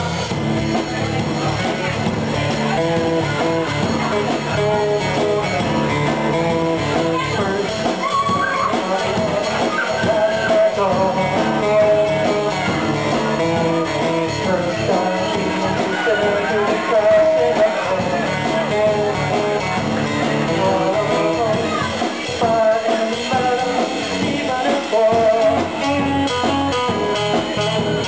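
Live rock band playing: acoustic guitar strummed, drums and electric guitar, with a male singer at the microphone.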